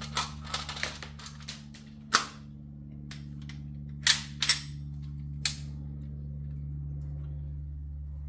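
Sig Sauer MCX Rattler Canebrake CO2 .177 air rifle: a quick series of small clattering clicks as the magazine is pushed in, then four sharp shots, two of them about half a second apart. A steady low hum runs underneath.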